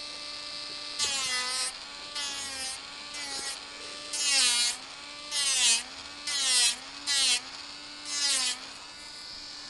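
Electric nail drill with a sanding bit filing down the gel on a nail. There is a steady motor whine, and about eight short passes in which the bit bites with a rasping hiss and the whine dips in pitch as the motor slows under the pressure.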